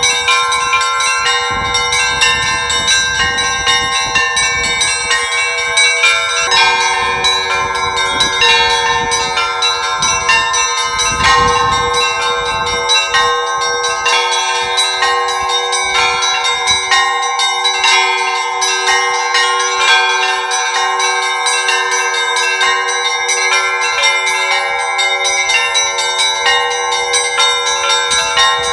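Orthodox church bells rung together from a bell tower in a continuous peal: many smaller bells struck in quick succession over one another. About six seconds in, a deeper bell joins and is struck steadily under them.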